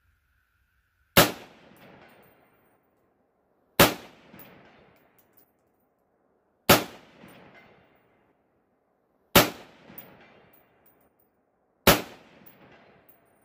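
Five rifle shots from an AR-15-type carbine chambered in 7.62x39, firing 123-grain full metal jacket rounds, about two and a half seconds apart. Each shot trails off over about a second.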